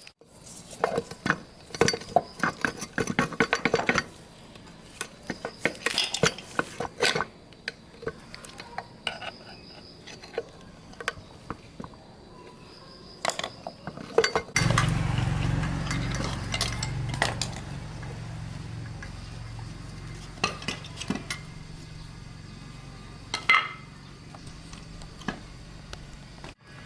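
Metal engine parts and hand tools clinking and knocking against each other in quick, irregular taps. About halfway through, a steady low machine hum starts and carries on under the clinks.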